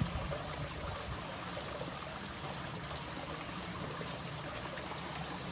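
Steady, even rushing noise with no distinct events, like running water or wind.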